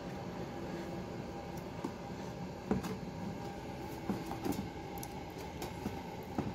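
Steady room hum with a few short, soft clicks scattered through, about five in all.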